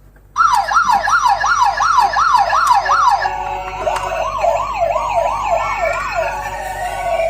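Electronic siren of a miniature toy ambulance, starting suddenly about half a second in and wailing up and down in fast sweeps about three times a second. About three seconds in the pattern changes to lower, overlapping sweeps, and near the end it slides into a slower falling tone.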